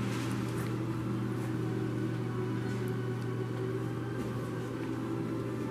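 Steady machinery hum: a strong low drone with several fainter steady tones above it, with a few faint clicks.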